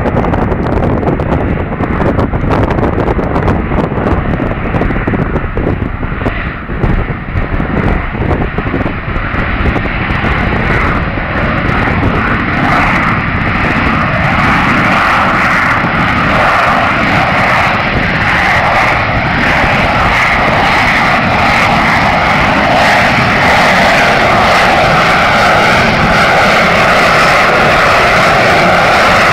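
BAe Harrier T12 jump jet on its landing approach, its Rolls-Royce Pegasus turbofan giving a steady high whine over jet noise that grows gradually louder as the aircraft closes in.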